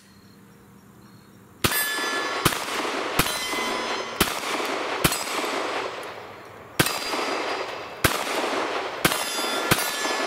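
Glock 19 Gen 5 9mm pistol fired slowly at steel targets: nine shots starting about a second and a half in, spaced roughly a second apart, each followed by the ringing of a struck steel plate.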